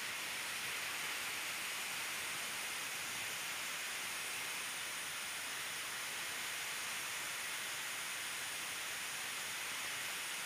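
A steady, even hiss with no other sounds.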